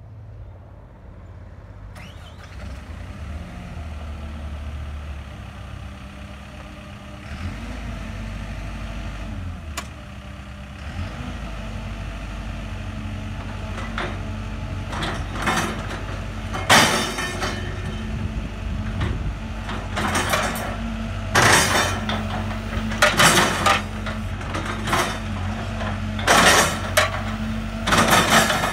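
Caterpillar hydraulic excavator's diesel engine running and building in level during the first ten seconds as the boom and bucket are worked. In the second half come repeated short loud bursts of hydraulic and linkage noise.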